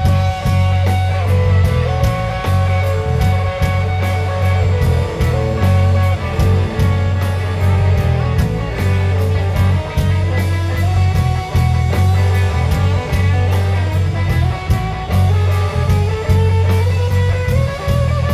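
A live rock band playing an instrumental passage: electric guitar lines gliding between notes over a heavy bass guitar and a steady drum-kit beat with cymbal hits.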